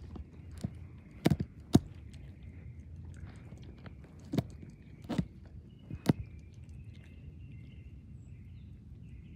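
German shepherd chewing and biting a soccer ball, with a handful of sharp clicks from teeth on the ball's hard cover, scattered through the first two-thirds, over quieter gnawing.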